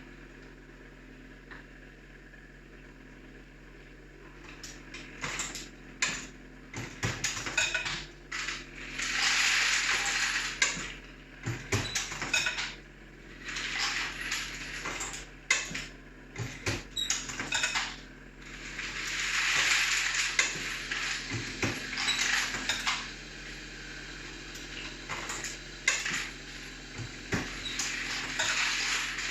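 Metal parts of a Dillon XL750 reloading press being handled, clinking and knocking against each other and on hard surfaces. The clinks begin after a few quiet seconds of steady hum, with a few longer, noisier stretches in between.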